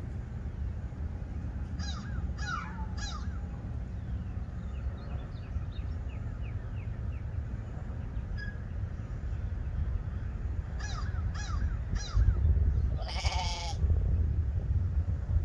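Newborn lamb bleating once, short and loud, near the end, over a steady low wind rumble on the microphone. Earlier, short high falling chirps come in two groups of three.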